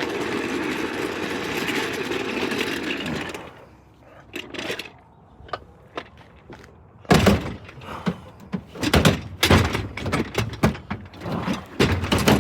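A steady scraping rush for the first few seconds, then after a short lull a run of loud thunks and clatters as a discarded chair is handled and heaved around one-handed.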